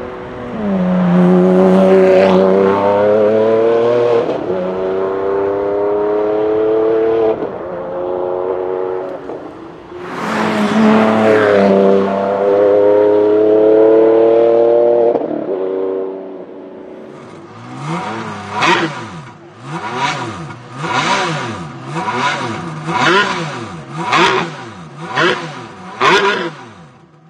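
Ferrari Enzo's 6.0-litre V12 under hard acceleration twice, its pitch climbing and then dropping sharply at each upshift. In the last third the same engine is revved while standing, about ten quick blips in a row, each rising and falling.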